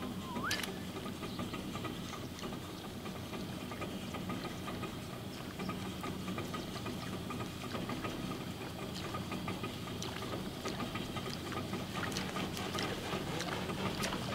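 Boat engine idling steadily, a low even hum with a faint higher whine over it and a few light ticks.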